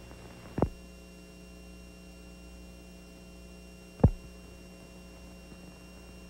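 Steady electrical mains hum with two sharp clicks, one about half a second in and another about four seconds in.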